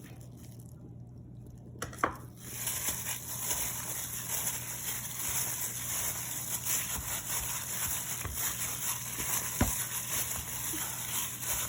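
Marinated chicken cubes being mixed with cornstarch in a bowl: a steady wet squishing and stirring that starts about two seconds in, with one sharp knock near the end.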